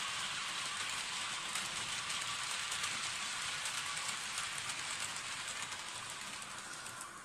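Model train running on the track: a steady rushing hiss of wheels on rail with faint irregular clicks, fading in the last couple of seconds as the train moves away.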